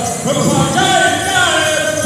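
Temple kirtan: voices singing a devotional chant together, with bells ringing.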